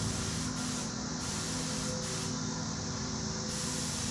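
Spray gun hissing in bursts as it sprays a coat of Cerakote, cutting off and on again a few times: a short gap about half a second in, a longer stop after about a second, a brief burst near two seconds, and the spray back on from about three and a half seconds. A steady low hum runs underneath.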